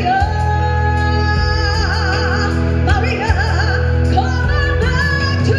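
A woman singing into a microphone over amplified backing music, holding long notes with a wide vibrato over a steady bass line.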